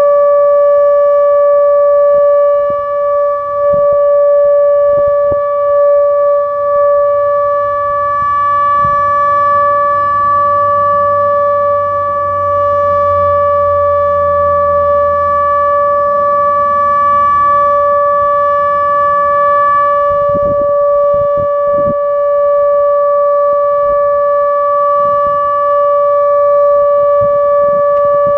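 Outdoor tornado warning siren sounding during a test, holding one steady, unwavering tone.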